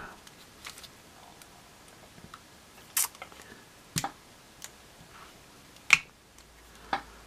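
Hard plastic clicking as a clear plastic stand rod and a plastic action figure are knocked and fitted against each other: four sharp clicks about a second apart, with faint handling rustle between them.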